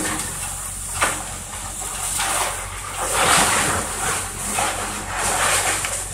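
Link-Belt excavator's diesel engine running steadily while its arm tears into a wooden house, with repeated surges of crunching, cracking wood and falling debris about once a second. A steady hiss of a water hose spraying the demolition runs underneath.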